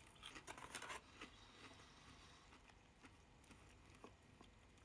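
Near silence with faint chewing of a breaded mozzarella stick: a few soft crackles in the first second, then only the odd faint tick.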